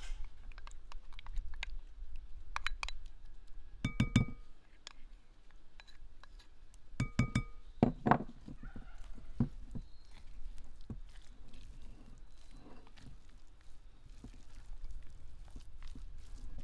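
A spoon scraping mayonnaise out of a ceramic bowl and knocking against the bowls, with a few sharp ringing clinks about four seconds in and again around seven to eight seconds in. After that come soft wet squishing and rustling as the salad is mixed.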